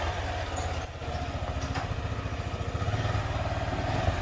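Small dual-sport motorcycle engine running at low speed as the bike is ridden slowly, a steady low, even putter.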